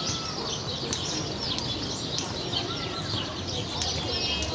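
Many small birds chirping continuously over a low background murmur, with a few sharp clicks.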